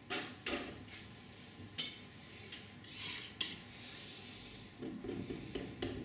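Flexible steel palette knife scraping and stroking oil paint onto a stretched cotton canvas, in a series of short scrapes with one longer stroke midway.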